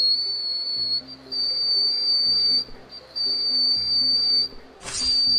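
A man's voice held on an extremely high whistle-register note, around the B8 of about 3,950 Hz, sounding like a thin whistle. He sustains it four times for a second or so each, with short breaks between. There is a brief hissing burst just before the last note, and faint low music underneath.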